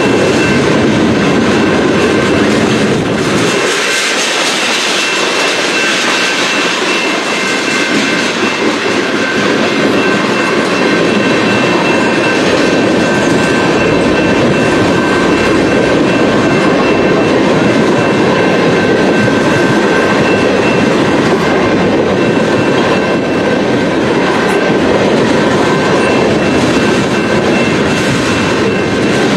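Freight train cars rolling past close by: a loud, steady rumble and clatter of steel wheels on rail, with a thin, steady high squeal over it.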